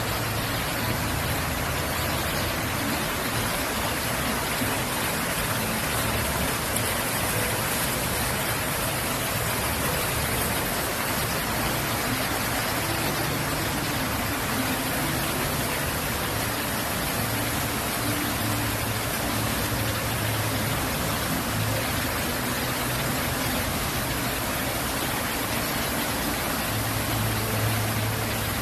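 Water pouring steadily down a decorative waterfall feature: a continuous, even rush of splashing water, with a low rumble underneath in places.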